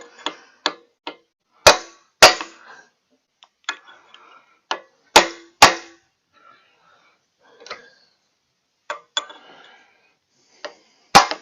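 Hand tools clinking and tapping on metal at the end of a log splitter's hydraulic cylinder while prying at the retaining ring: about a dozen sharp, irregular metallic knocks with brief ringing, the loudest about two seconds in and near the end.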